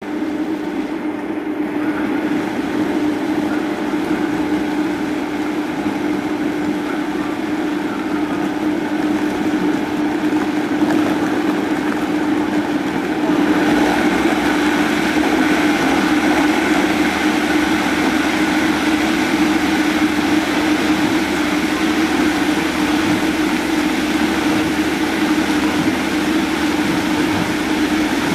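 Vitamix blender motor running continuously at high speed, its blades chopping apple, radish and cucumber chunks into a smooth purée. The sound steps up louder and brighter about halfway through.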